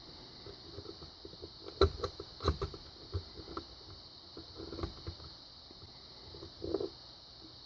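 Small metal clicks and scrapes of a tool prying at a padlock's stubborn retaining clip, with a few sharper clicks, the loudest about two seconds in.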